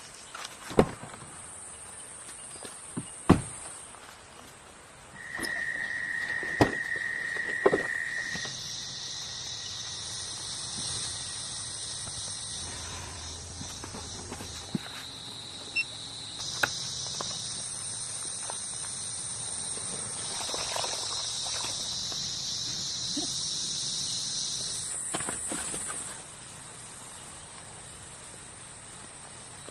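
Insects such as crickets or cicadas trilling in several steady high-pitched drones that start and stop, overlapping one another. A few sharp knocks or steps sound in the first eight seconds.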